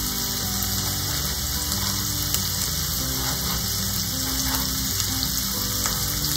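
Onions and green peppers sizzling steadily in a sauté pan, under soft background music, with an occasional light knife tap on a plastic cutting board.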